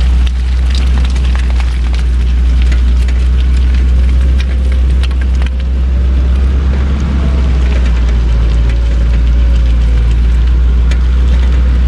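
Land Rover Discovery II driving on an off-road trail: a steady low rumble with scattered knocks and rattles.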